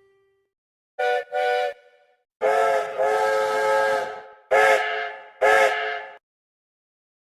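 Steam locomotive whistle sounding several notes at once, played as a sound effect: two short toots, one long blast, then two more short toots, each with a hiss of steam.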